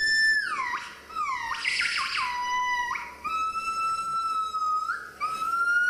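Gibbon singing: a run of pure, whistle-like hoots. The first few slide down in pitch, then come longer held notes that edge upward near the end.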